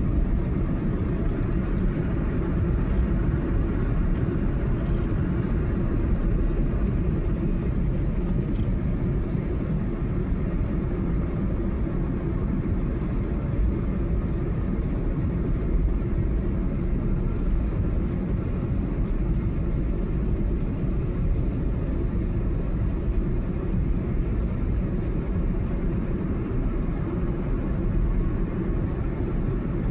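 A car driving at speed: steady road and engine rumble with no change in pace.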